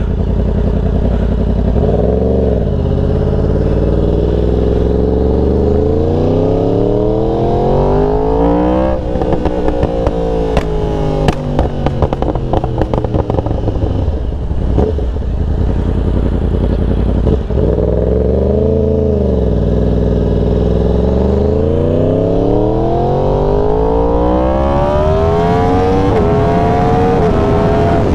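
Yamaha R1 sport bike's inline-four engine under hard acceleration, its pitch climbing smoothly. About a third of the way in the throttle closes and the exhaust crackles and pops for a few seconds. Then the engine pulls hard again, the pitch stepping down briefly at each upshift near the end.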